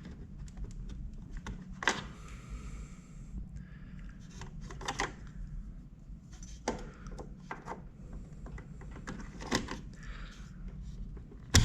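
Handling of a desktop RAM module and its memory slot: a series of sharp plastic clicks and rustles as the DIMM's retaining clips are worked and the stick is pulled and refitted, over a steady low hum.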